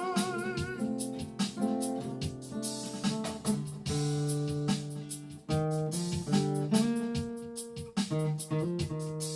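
Instrumental guitar passage of a soul-country song, with picked notes and chords following one another. A sung note held with vibrato fades out within the first second.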